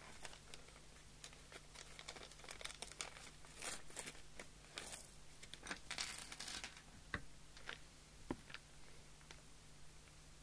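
Handling noises on a workbench: crinkling and rustling with scattered small clicks, busiest in the middle, then three sharper clicks, over a faint steady hum.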